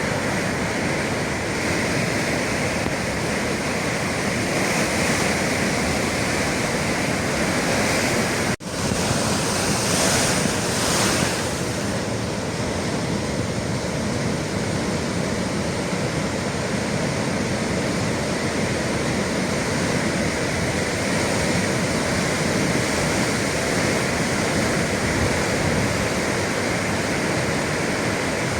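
Sea waves washing and breaking against the shore in a steady roar of surf, with wind on the microphone. The sound cuts out for an instant about eight and a half seconds in, and a wave swells up just after.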